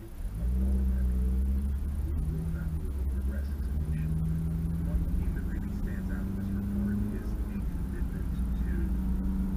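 Car engine and road rumble heard inside the cabin: a steady deep rumble with an engine hum that shifts in pitch a few times as the car drives on.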